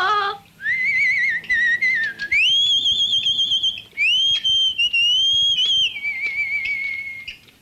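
A man whistling a song's melody through pursed lips: a clear tune with a wavering pitch that steps up higher about two seconds in, breaks briefly, and drops back down near the end.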